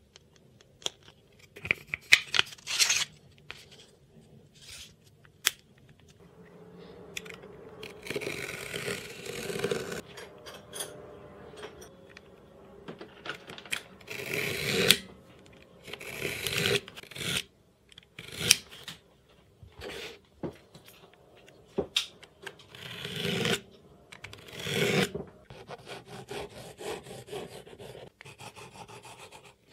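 Intermittent scraping, rubbing and sharp clicks of hand work on a small wooden block: a metal bolt being fitted into the wood, a hand tool drawn along it, and pieces being handled and set down on the bench.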